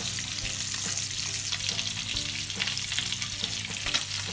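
Two whole short mackerel sizzling steadily in hot oil in a frying pan, with many small crackles in the hiss, which cuts off just after the end.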